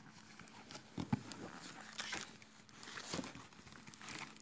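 Cardboard gift boxes being handled and opened: faint rustling of the cardboard and packing, with a few light knocks about one, two and three seconds in.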